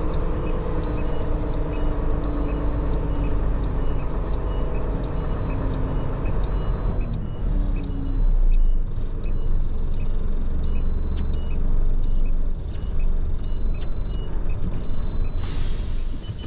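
Large truck running with a low rumble, while a high beep repeats evenly about one and a half times a second, like a reversing alarm. A short burst of hiss comes near the end.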